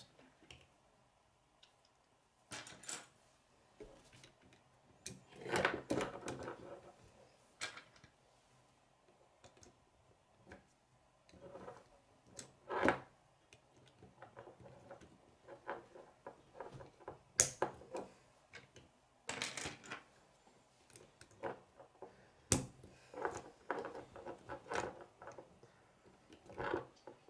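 Plastic K'nex rods and connectors clicking and clattering as they are handled and snapped together, in irregular clicks with a few louder snaps.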